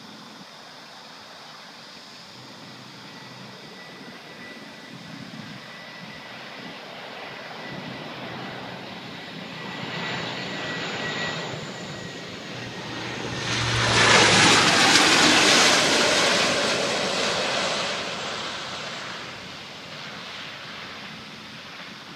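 Airplane flying low overhead: its engine noise builds steadily, with a thin high whine as it approaches, peaks loudly about fourteen seconds in as it passes, then fades away.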